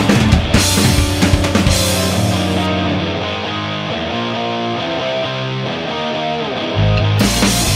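Background rock music with a drum kit and guitar. The cymbals and drums drop away about three seconds in, and the full beat comes back near the end.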